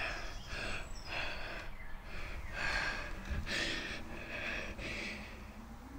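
A person breathing quickly and heavily in short, hissy breaths, about one a second.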